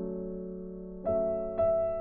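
Background music of slow, sustained keyboard chords, with new notes struck about a second in and again half a second later.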